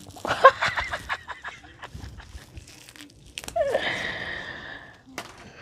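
Crinkling and small crackling clicks of a sandwich wrapper being handled while eating, busiest in the first second. A brief hissing sound comes about three and a half seconds in.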